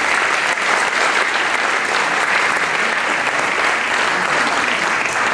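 Audience applauding, many people clapping in a dense, steady patter.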